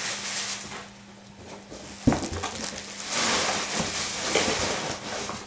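Rustling of a costume coat and its packaging being handled, with one sharp knock about two seconds in. The rustling grows louder and denser from about three seconds in.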